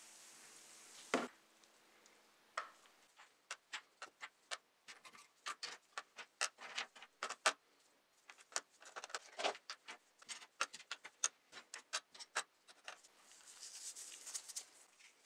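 Small model car parts being dropped one by one into a plastic tub, giving many sharp irregular clicks and clatters, several a second. Near the end the clicking gives way to a soft hiss.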